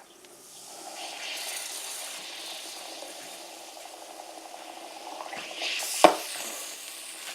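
Cola fizzing hard in a glass, set off by a sugar cube rubbed with cigarette ash. The hiss builds about a second in and holds steady, with one sharp knock about six seconds in.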